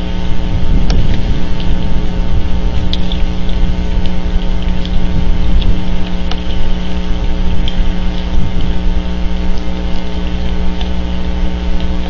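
Wind rumbling on an outdoor wildlife camera's microphone over a steady electrical hum, with scattered faint ticks.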